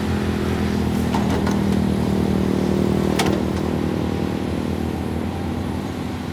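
Caterpillar 320D crawler excavator's diesel engine running steadily as the machine digs, with a single sharp clank about three seconds in.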